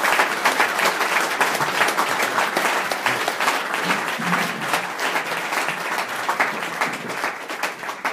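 Audience applauding, many hands clapping steadily, tapering off near the end.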